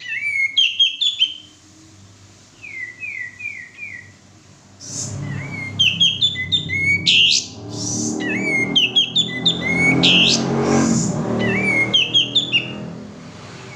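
Male kapas tembak bulbul singing vigorously in quick, repeated chirping and whistled phrases. A low rumble runs under the song for much of the middle.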